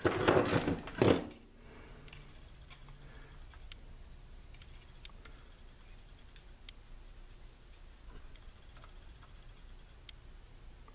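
A short loud burst of handling noise in the first second, then faint scattered ticks and clicks of hand soldering, as a soldering iron and solder work a wire onto a terminal lug.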